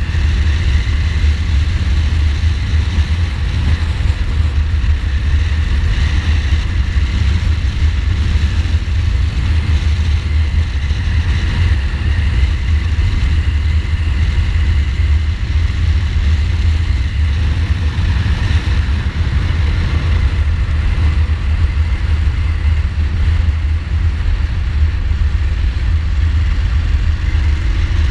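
Wind buffeting the microphone at road speed on a 2015 Ducati Multistrada, with the bike's L-twin engine running steadily underneath.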